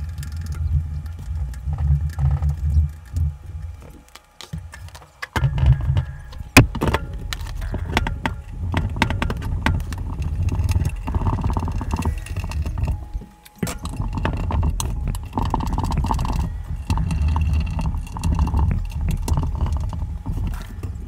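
Knocks, clicks and rubbing of a wooden cabinet and its glass door being handled while the door is mounted on its metal hinges. There are many sharp clicks and one loud knock about six and a half seconds in.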